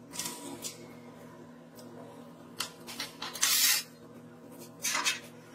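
Thin steel sheet scraping and clattering against a steel jig and the workbench as it is handled and lifted away: a few short scrapes and a click, the loudest a scrape of under half a second midway through.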